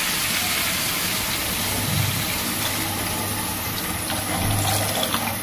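Water poured in a steady stream from above into a nonstick frying pan of fried, spiced red lentils and vegetable stalks.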